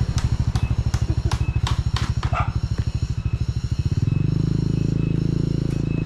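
Small motorcycle engine running close by, pulsing evenly at low revs with some clicking, then revving up to a steadier, higher hum about four seconds in.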